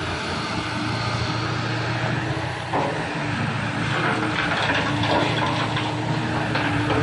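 Heavy diesel mining machinery running steadily, a low engine drone with a steady whine over it; the sound shifts a little under three seconds in.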